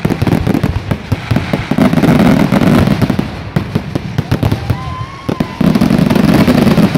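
Fireworks display: rapid crackling and bangs of shells bursting, swelling into two dense rumbling barrages, one about two seconds in and one near the end, which stops suddenly.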